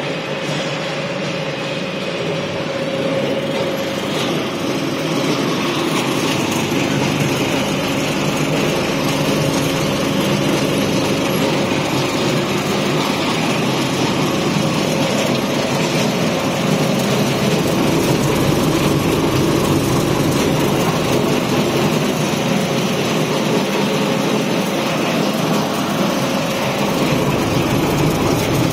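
Small macaroni production machinery running steadily: first the dough mixer's paddles churning flour, then the single-screw extruder with its cutter motor. A continuous mechanical hum that grows a little louder a few seconds in.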